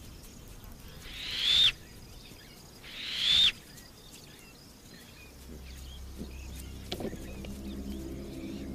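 Two loud, high whistles from Uganda kob, each swelling over about half a second and cutting off sharply, a second and a half apart. These are typical of the kob's alarm whistle. A low music drone fades in from about halfway.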